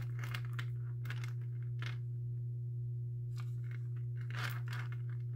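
A steady low electrical hum, with a few faint clicks and clinks as a gold-tone metal necklace is handled.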